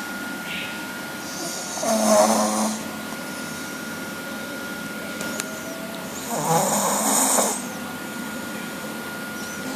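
A pug snoring in its sleep: two long, rasping snores about four and a half seconds apart, with quieter breathing between them.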